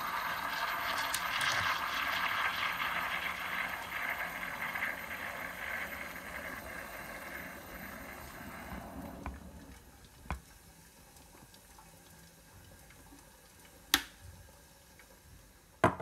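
Steam wand of a Zacconi Riviera lever espresso machine frothing milk in a stainless steel pitcher: a steady hiss that dies away about nine seconds in. Then three short, sharp knocks, the loudest two near the end.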